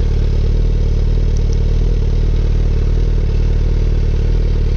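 Motorcycle engine idling steadily through an aftermarket Mivv slip-on exhaust can, reading about 85 dBA at half a metre.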